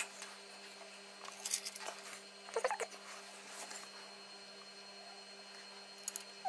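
Faint, scattered small clicks and light taps of hand tools working on a circuit board during microsoldering, three or four short clusters, over a steady low hum.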